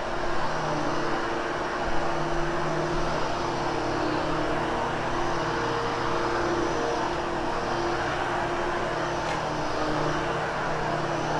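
Hoover HushTone vacuum cleaner running steadily, a continuous motor whine and airflow rush whose hum wavers slightly as it is worked over the carpet.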